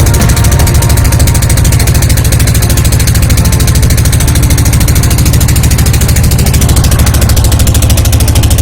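A river ferry boat's engine running steadily and loud, close by, with a fast, even pulse.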